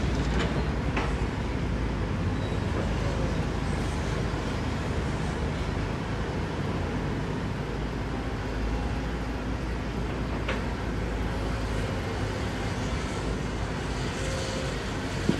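Heavy construction machine's diesel engine running steadily, with a few brief sharp knocks.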